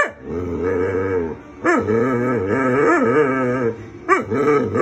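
A dog making drawn-out, wavering "talking" calls, as if trying to speak: three long vocalizations, the second the longest, from about two seconds in, and a shorter one starting near the end.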